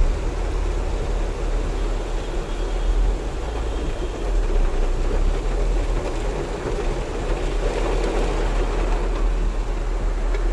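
Heavy rain falling on a car's roof and windscreen, heard from inside the cabin over a steady low engine hum.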